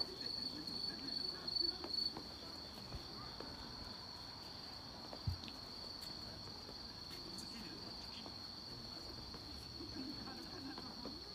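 Autumn crickets trilling at a high pitch, in short pulsed chirps for the first couple of seconds and then a steady unbroken trill, with one soft thump about five seconds in.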